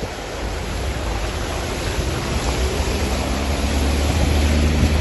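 Cars driving through a flooded street, tyres pushing and sloshing through deep water in a steady rushing wash. A vehicle engine hum grows louder in the second half as a van comes through the water close by.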